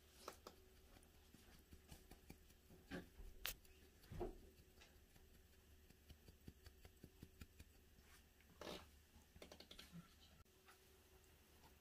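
Near silence broken by faint scattered ticks and light taps as black pepper is shaken over raw pork spare ribs, with a few slightly louder knocks and a quick run of small ticks near the end.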